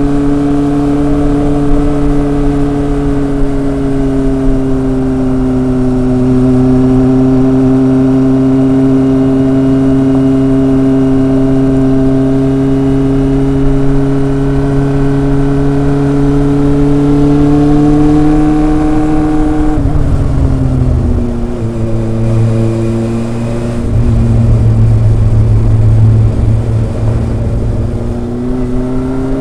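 Kawasaki ZRX inline-four engine and exhaust running under way at a steady engine speed. About two-thirds through the revs fall and stay low for a few seconds, then climb again near the end.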